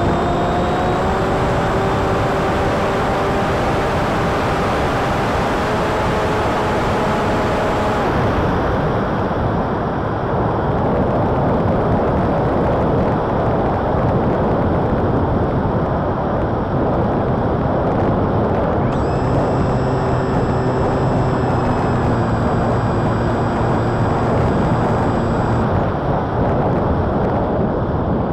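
Wind rushing over an onboard camera's microphone on a flying wing, with the Emax 2207 1900kv brushless motor and folding prop whining under power for the first several seconds. The motor cuts out, then whines again for a stretch in the latter part before cutting out near the end.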